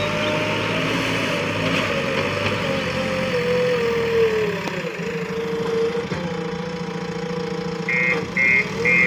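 JCB 3DX Eco backhoe loader's diesel engine running, its pitch dipping and rising as it works. Near the end a reversing alarm starts beeping about twice a second.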